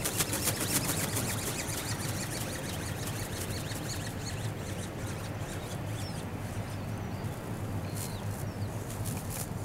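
Wind buffeting the microphone in a steady low rumble. Rapid faint ticking comes at the start and again near the end, and small birds give a few short high chirps.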